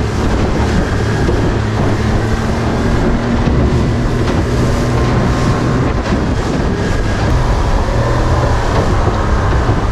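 A 40 hp outboard motor running steadily with the boat at speed, under a constant hiss of water rushing past the hull and wind.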